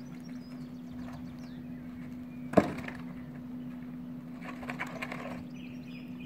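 Wooden keel blocks knocked into place under a hoisted boat's hull: one sharp wooden knock about two and a half seconds in, then a few lighter knocks a couple of seconds later, over the steady hum of the boat travel hoist's engine.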